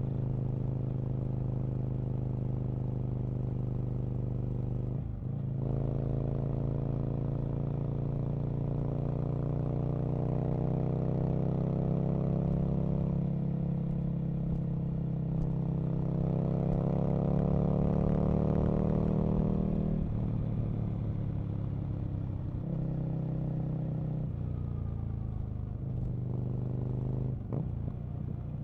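Aprilia RSV Mille's 998 cc V-twin engine heard from the rider's seat, its note climbing under throttle and then falling back several times. The note breaks briefly a few times as the revs drop, then climbs again.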